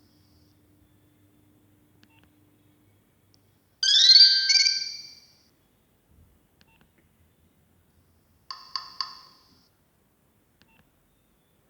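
Nokia 6070 mobile phone playing two short electronic tones: a bright rising chirp that starts suddenly about four seconds in and lasts a second and a half, then a quick run of three blips near the end.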